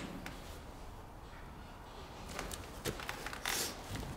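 Faint handling noise: a few soft rustles and clicks, with a short hiss about three and a half seconds in, over a quiet background.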